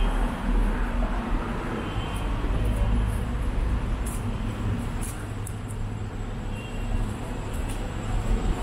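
City road traffic passing on a multi-lane street, with a bus, cars and motor scooters going by: a steady low rumble of engines and tyres.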